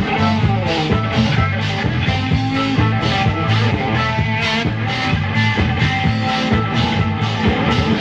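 A rock band playing live, with guitar over a steady beat.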